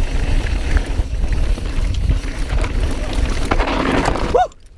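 Wind rushing over the microphone with tyre rumble from a mountain bike riding down a dirt trail. The rush swells louder about three and a half seconds in, then drops away suddenly near the end.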